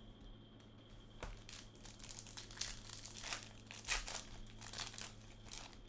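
Plastic trading-card pack wrapper crinkling and crackling in the hands as the pack is opened, a busy run of crackles that starts about a second in and is strongest around four seconds in.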